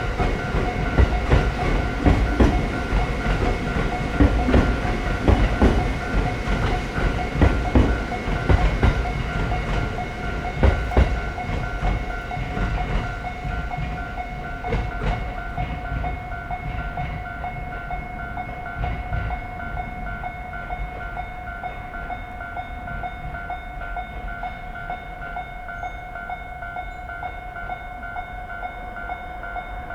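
Japanese railway level crossing warning alarm ringing in a steady, fast repeating electronic ding while a train passes with rumble and wheel clatter over rail joints; the train noise fades away about halfway through, leaving the alarm ringing on.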